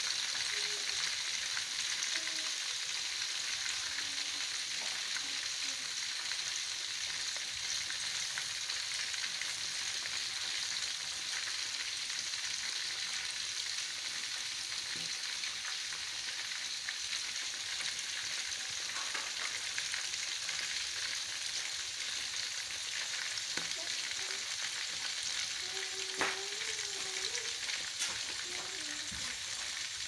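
Chicken pieces frying in hot oil in an aluminium wok, a steady sizzle with fine pops throughout, and a single sharp click near the end.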